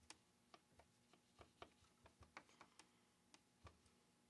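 Faint, irregular small clicks and taps, about a dozen, from hands handling and fitting parts on a Stihl MS390 chainsaw's body while a fuel tank vent is worked into place.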